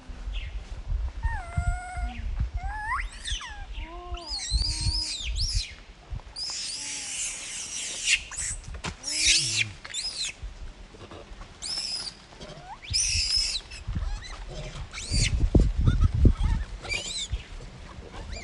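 Baby long-tailed macaque crying: a string of rising-and-falling coos, then shrill, high screams repeated through the second half. Low rumbling on the microphone, loudest about three quarters of the way in.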